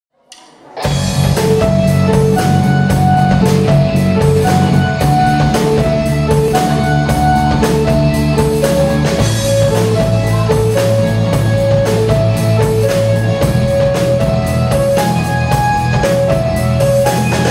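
Live rock band playing an instrumental intro on drums, bass, electric guitar and keyboard: a short melodic figure repeats over held low bass notes and a steady drum beat. It starts about a second in.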